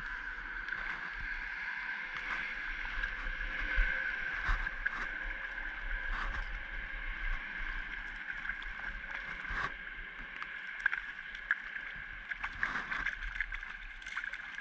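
Steady rain falling on a lake surface, with scattered sharp taps and ticks throughout.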